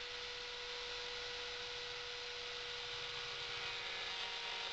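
Router and woodturning lathe running on a homebuilt copier-lathe setup: a steady motor whine with hiss and no cutting strokes.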